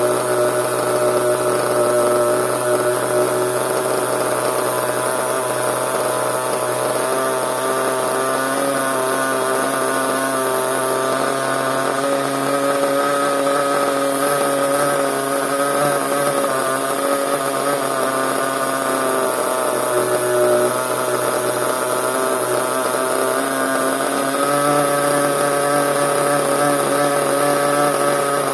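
Small nitro (glow-fuel) engine of an RC monster truck running steadily, its pitch shifting slightly a couple of times.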